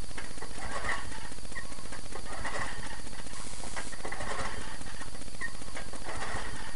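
Small single-cylinder Tecumseh snowblower engine, about 3.5 hp, running with a rapid, even firing beat that swells about every second and a half to two seconds. It runs without an air filter, on a carburetor that needs a rebuild.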